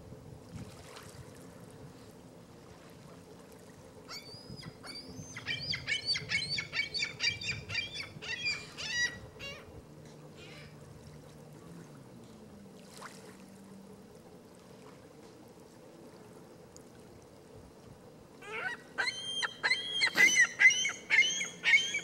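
Great blue heron sneezing: bouts of quick, repeated short calls, about three or four a second. The first bout starts a few seconds in and lasts about five seconds, and a second, louder bout comes near the end.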